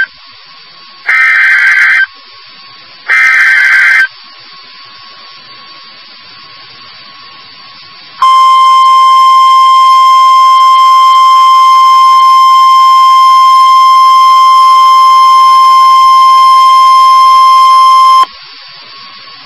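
NOAA Weather Radio alert signal: two one-second bursts of digital data tones about two seconds apart, the last two of the three repeated SAME header bursts. After a pause of about four seconds comes the single steady 1050 Hz warning alarm tone, held for about ten seconds and cut off sharply. The tone signals that a tornado warning message follows.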